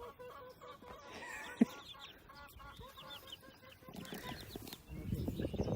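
Chickens clucking and chirping quietly in short, scattered calls, with one sharp knock about a second and a half in.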